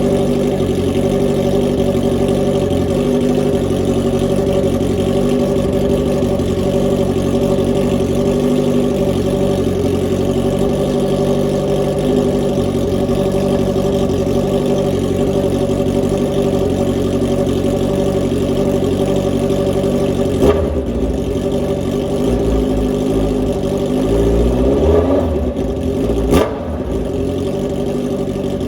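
Honda CB650F's inline-four engine running through a straight-pipe full exhaust with no silencer, idling steadily and loud. About twenty seconds in there is a sharp crack, then the engine is revved up and back down with another crack at the top before it settles to idle again.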